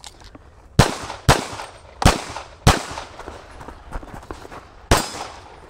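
Pistol shots fired at close range, five sharp cracks: two quick pairs about half a second apart in the first three seconds, then one more shot near the end.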